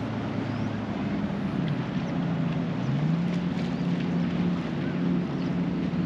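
Jet ski engine running, a steady drone whose pitch shifts and then rises about three seconds in and holds there.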